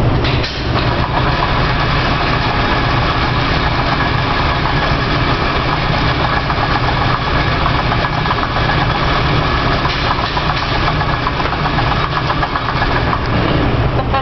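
Steady vehicle engine noise, running evenly with its weight in the low end.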